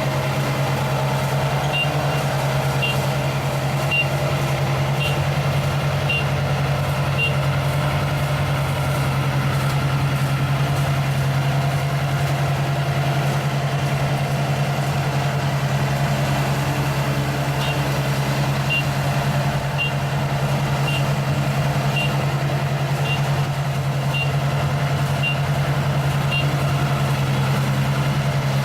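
ISEKI rice combine harvester's engine running steadily under work. Twice a high warning beeper sounds about once a second, for a run of five beeps and then a run of about nine.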